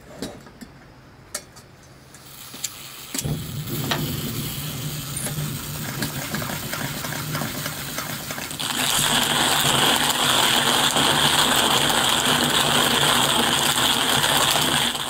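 Single-burner camp stove being lit: a few clicks from its valve and igniter, a hiss of fuel from about two seconds in, then the burner catches and runs with a steady roar. About nine seconds in the roar grows louder and brighter, then cuts off suddenly at the end.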